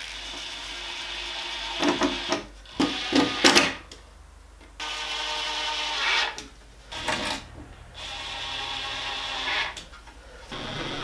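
Cordless drill driver working into a wooden frame in several short runs of its motor, with knocks and clatter between the runs.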